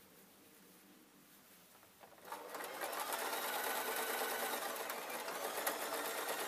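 Domestic Singer sewing machine, quiet at first, starting up about two seconds in and then running steadily with rapid, even needle strokes as it stitches through thick fur fabric.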